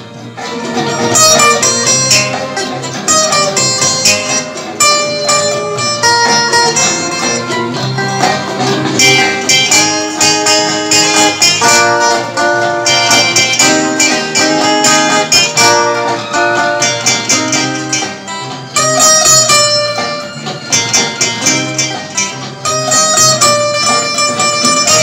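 Three acoustic guitars playing an instrumental tune together, a picked melody over strummed and plucked chords.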